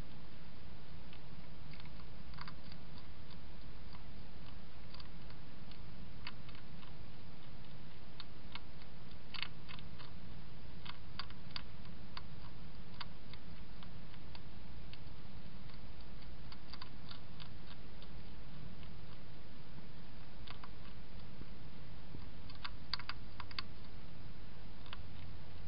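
European hedgehog crunching dry food from a dish: irregular sharp clicks and crackles, some in quick clusters, over a steady low hum.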